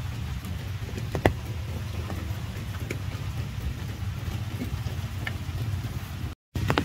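Rain falling on puddles, with scattered sharp drop ticks over a steady low rumble. The sound cuts out for a split second near the end.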